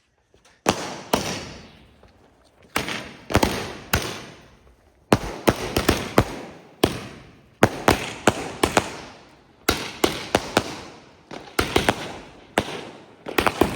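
Firecrackers going off one after another: around twenty-five sharp bangs at irregular gaps, some close together in pairs and triples, each fading away with a short echo.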